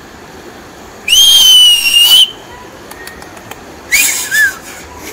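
Whistling: one loud, clear whistle held for just over a second, then about two seconds later a short two-note whistle with the second note lower.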